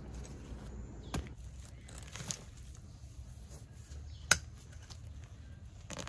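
Garden hand tools being handled in straw mulch: a few sharp clicks and knocks, the loudest about four seconds in, over a low outdoor rumble.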